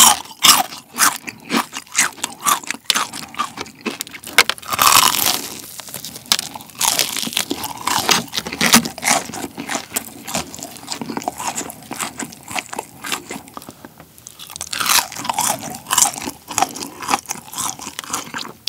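Crispy deep-fried BBQ Golden Olive chicken being bitten and chewed close to the microphone: a fast, irregular run of crunches from the fried batter, busiest about five seconds in and again near the end.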